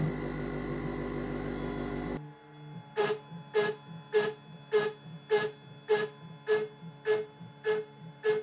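Desktop CNC lathe-mill running with a steady hum. About two seconds in, this gives way to a regular ticking, about two ticks a second.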